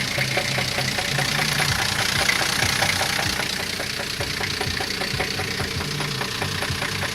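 Engine idling with a rapid, regular knock. It is a strange knock that the men fear will spin a bearing shell if the engine keeps running.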